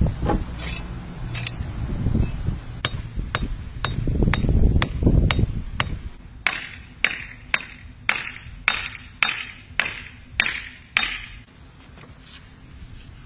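A wooden stake being hammered into the ground: about ten sharp, evenly spaced blows, a little under two a second, starting about halfway through. Before them come scattered crackles and knocks over a low rumble.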